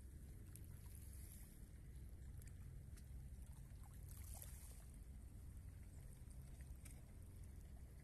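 Near silence: a faint, steady low rumble with a few faint ticks.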